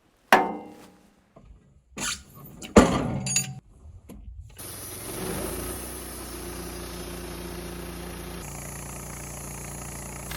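Wood-Mizer LT15 sawmill: a few loud metal clanks and bangs, then its engine starts about four and a half seconds in and runs steadily with a fresh band just fitted.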